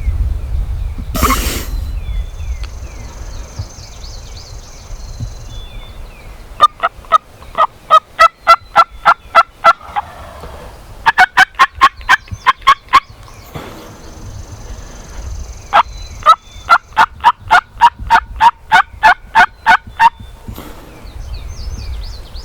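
Turkey yelping: three long runs of loud, evenly spaced yelps, about four a second, with wind rumbling on the microphone in between.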